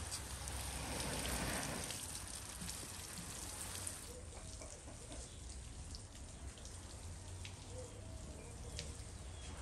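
Water showering from a plastic watering can's rose onto geranium leaves and potting soil, a steady rain-like patter. It is loudest in the first two seconds and quieter from about four seconds in.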